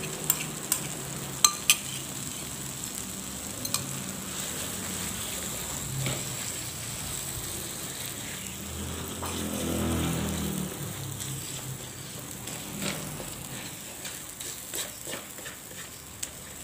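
Spice paste and dried shrimp sizzling in oil in a wok, stirred and scraped with a spatula, with a few sharp taps of the spatula on the pan in the first two seconds. A low hum swells briefly around ten seconds in.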